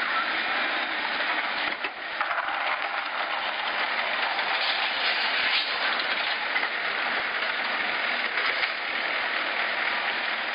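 Backhoe loader's diesel engine running steadily as the machine works its front bucket, with a few brief knocks and rattles.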